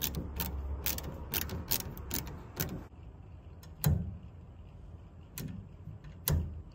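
Screwdriver tightening the mounting screw of a turn-signal lever in a steering column: a run of sharp metallic clicks, about three a second, for the first two and a half seconds. Then two single knocks as the fitted lever is handled.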